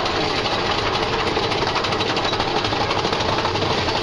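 Mine-train roller coaster being hauled up a lift hill: a steady, rapid mechanical clatter from the lift chain under the train.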